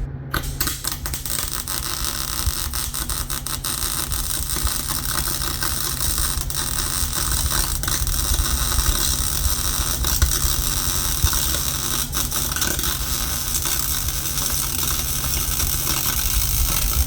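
Arc welder laying one long continuous bead on steel subframe connectors: a steady crackling sizzle dotted with pops, over a low hum, cutting off suddenly near the end. The welder afterwards says the bead had some garbage in it, a sign of a contaminated weld.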